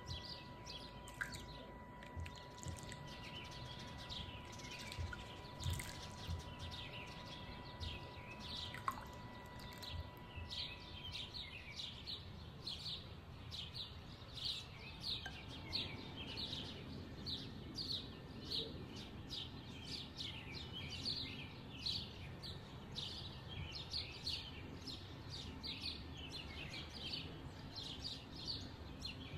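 Small birds chirping steadily, a quick short falling chirp about twice a second.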